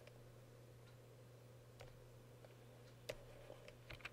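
Near silence over a low steady hum, broken by a few faint computer mouse clicks, the clearest about three seconds in and again near the end.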